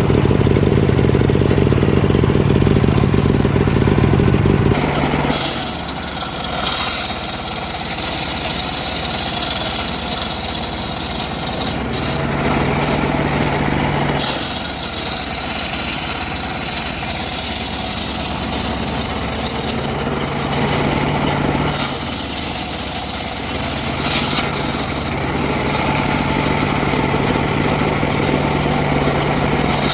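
An engine-driven saw running at a steady note, then cutting into wood from about five seconds in. The cutting makes a dense high rasping noise that carries on, with short spells where the engine note comes through alone.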